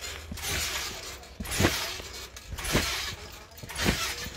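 Trampoline mat thudding as a person bounces on it, three landings about a second apart.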